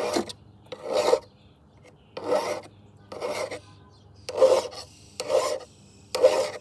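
Hand file rasping along the bevelled cutting edge of the Homelite electric lawnmower's steel blade in single push strokes, seven of them about a second apart: the dull blade being sharpened one push at a time, not sawed back and forth.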